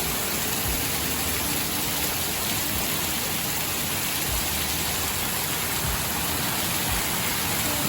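Extremely heavy rain pouring down in a steady, dense hiss, with water gushing off a roof.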